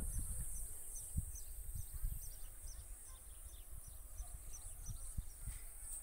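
A small bird calling over and over with short, high, falling chirps, about two to three a second. There is a low rumble and a few bumps on the microphone underneath.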